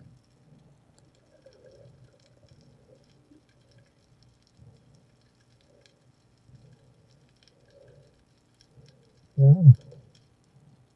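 Underwater sound heard through a camera's housing: a faint low hum with sparse, scattered ticks, then a short, loud, low, muffled sound with a falling pitch about nine and a half seconds in.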